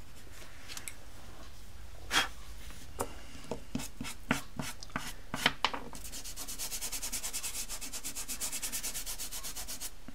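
Pastel pencil scratching and tapping in short strokes on pastel paper, then fast, steady rubbing across the paper's surface for about four seconds.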